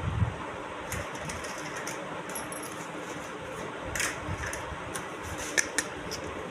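Small plastic toy kitchen pieces clicking and tapping as they are handled, a few sharp clicks, two of them close together near the end, over a steady background hiss.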